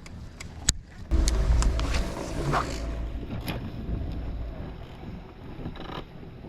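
Wind rumbling on the microphone for a few seconds, with a few sharp clicks, then a quieter steady background.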